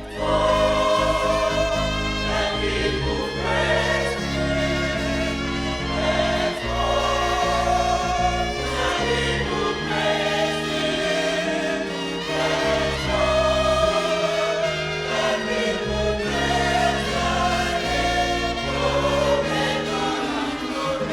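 Gospel choir singing with instrumental backing, a steady run of sustained chords that stops abruptly about a second after the end.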